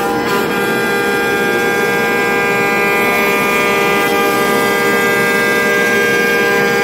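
CNC router spindle milling out the wooden autoharp frame, with its dust extraction running: a steady whine with many overtones.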